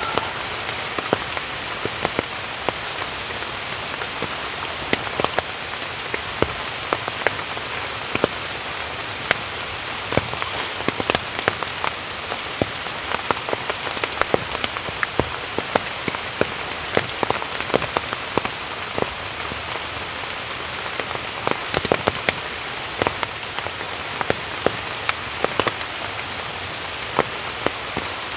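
Steady rain, with many sharp, irregular drop impacts striking a surface close by and standing out over the even hiss of the downpour.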